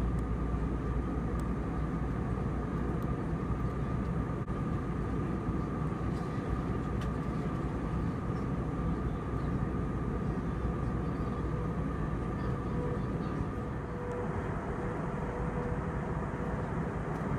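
Steady cabin noise of an Airbus A320-200 in flight: a constant engine and airflow drone with a faint steady whine, which gives way to a lower whine near the end.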